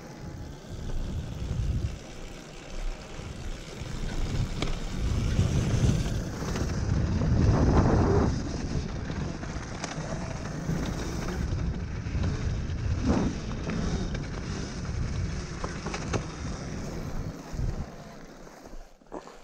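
Enduro dirt bike being ridden, its engine buried in rumbling wind noise on the microphone, swelling loudest about eight seconds in, with a few short knocks.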